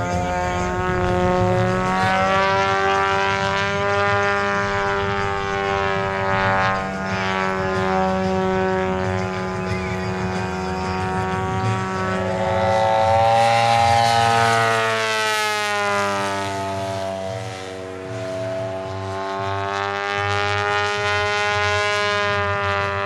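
Giant-scale RC aerobatic plane's engine and propeller running through aerobatic passes, the note rising and falling with throttle and fly-bys, highest about halfway through.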